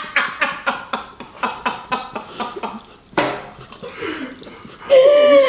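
People laughing hard: a fast run of rhythmic ha-ha pulses that tails off, then a loud, drawn-out laughing cry that bends in pitch near the end.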